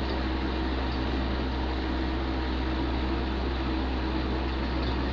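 Steady hum and hiss of electrical equipment running, even throughout, with a strong low drone under a fan-like rush.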